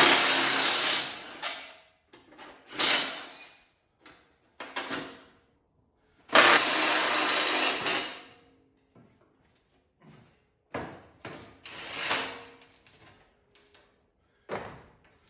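Cordless power tool running in several short bursts, the longest about six seconds in, as bolts are backed off the aluminium sign assembly.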